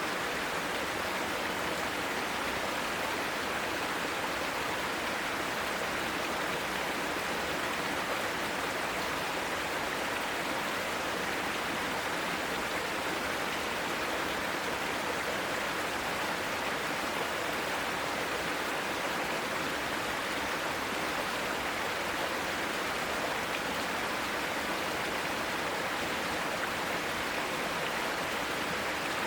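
Mountain valley stream flowing, a steady, unbroken rush of water.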